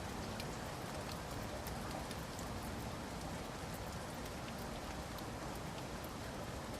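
Steady rain falling in a forest, an even hiss with scattered individual drops ticking on surfaces.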